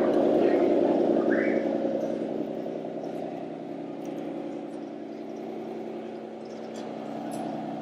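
Steady engine drone from a radio-controlled model truck, several held tones that fade over the first three seconds, then run on quieter. A brief rising chirp about a second and a half in.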